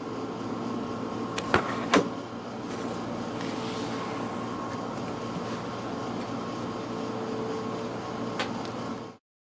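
Steady room hum with a faint steady whine, broken by two sharp clicks about a second and a half and two seconds in and a lighter click near the end; the sound then cuts off abruptly.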